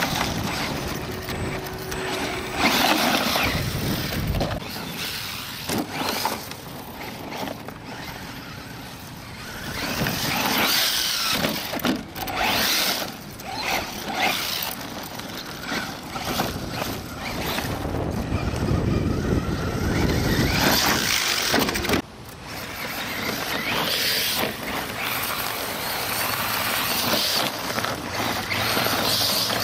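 Acme Trooper radio-controlled short-course truck driving hard over dirt and jumps, its motor and tyres on loose gravel rising and falling in surges.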